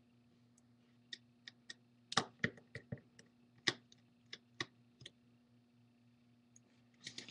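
Irregular light clicks and taps of a small screwdriver and tiny screws against the opened iPad's metal housing and the tabletop, about a dozen in all, the loudest about two and nearly four seconds in. A faint steady low hum runs underneath.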